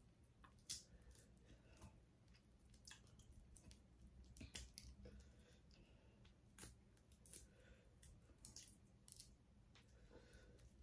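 Faint, scattered clicks and soft squishing of sauce-covered seafood-boil shellfish being picked apart and cleaned out of the shell by hand, with eating sounds.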